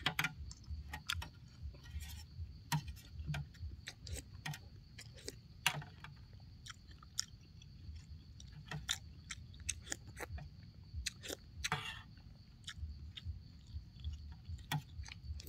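A person eating rice-noodle soup close to the microphone: irregular wet chewing smacks and clicks, with a longer slurp of noodles a little before the last few seconds. A faint steady high tone sits behind it throughout.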